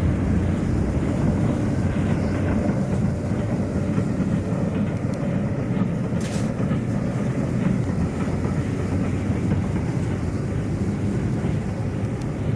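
Electric train running steadily on the rails: a continuous low rumble without distinct beats.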